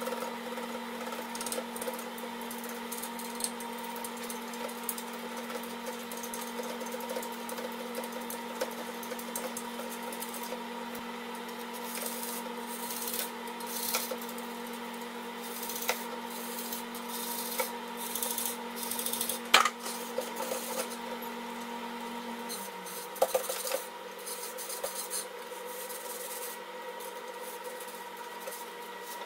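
A brush scrubbing the ice-cube grid inside an ice maker during cleaning: an irregular rasping rub, with a few sharp knocks, the loudest about two thirds of the way through. A steady low hum underneath stops about three quarters of the way through.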